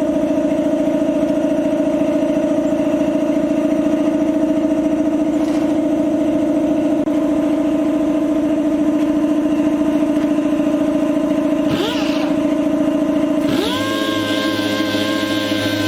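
Power sander running steadily on body filler with a constant whining note. Near the end the pitch dips and settles into a different steady note with more hiss, as the sander is loaded against the panel.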